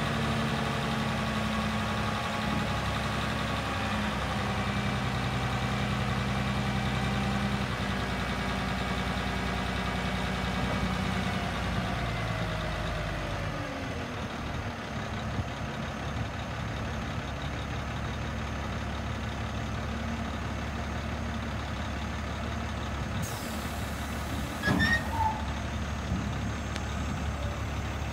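A 1998 International dump truck's diesel engine runs while the hydraulic hoist tips the dump bed up. The engine's steady note drops in pitch about halfway through as the bed reaches full height. A short, sharp clank with a brief squeak comes near the end.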